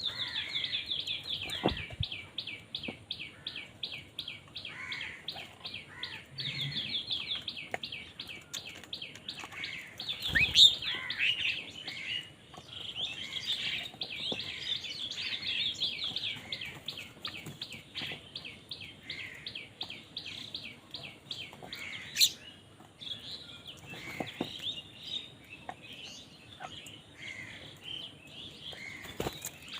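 Bird chirping in a fast, steady series of short high notes, about four a second, with a sharp click twice along the way.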